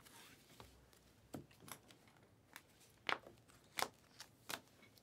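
A stack of Panini Prizm basketball cards being flipped through by hand: a series of faint, short card clicks about one every half second, louder in the second half, after a soft rustle at the start.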